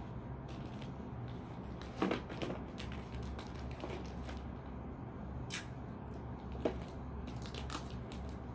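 Hand-wrapping of small gifts: scattered rustling and crinkling of the wrapping with a few sharp clicks, the loudest about 2 seconds in and again near the middle, over a steady low hum.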